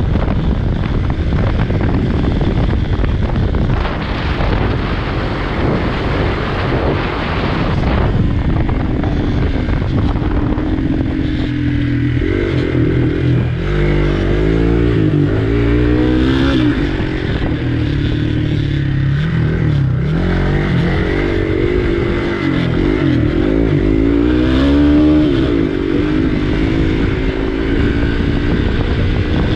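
Dirt motorcycle's engine running under way, its pitch rising and falling again and again as the rider opens and closes the throttle. Heavy wind buffeting on the action camera's microphone largely masks the engine for the first third.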